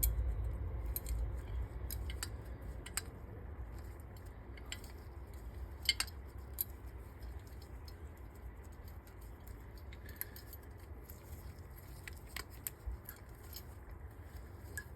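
Scattered small metallic clicks and taps of carburettor parts and tools being handled, over a low steady rumble; the sharpest click comes about six seconds in.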